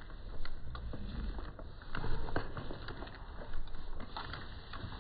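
Rustling and small knocks of handling as a black AR-style rifle is pulled out of a jeans waistband: scattered clicks with a few low thumps, the strongest about two seconds in.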